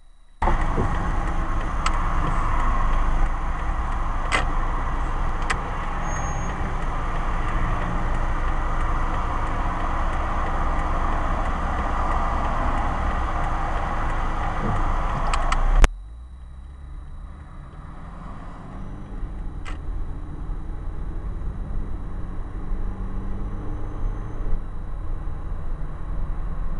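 Car cabin noise picked up by a dashcam: a loud steady rush with a few sharp clicks, which drops abruptly about sixteen seconds in to quieter engine and road noise that slowly grows as the car drives on.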